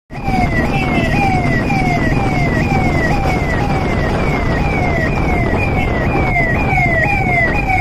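Police siren sounding a fast repeating cycle, each one jumping up in pitch and sliding down, about two a second, over a low rumble.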